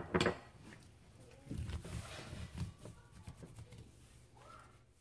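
Gloved hands rubbing liquid smoke into a rack of raw pork ribs on paper towels: soft, irregular wet rubbing and squishing, with a short sharp knock right at the start.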